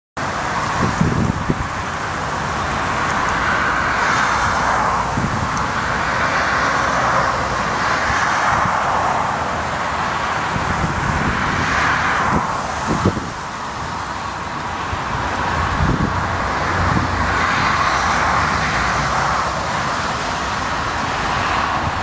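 Gusty wind buffeting the microphone with irregular low thumps, over a steady rushing roar from a Boeing 777-300's jet engines on final approach in a strong crosswind.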